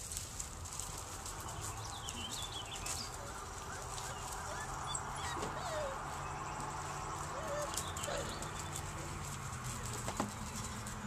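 Puppies whimpering, with short squeaky whines scattered through, over a steady low hum.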